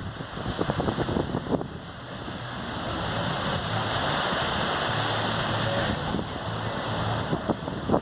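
Surf washing onto a sandy beach: a wave's rush swells about three seconds in and eases off near the end, with wind buffeting the microphone.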